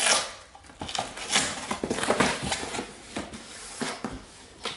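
Cardboard box being opened by hand: a round paper seal peeled off and the flaps pulled open, with irregular scraping, rubbing and tapping of cardboard, loudest right at the start.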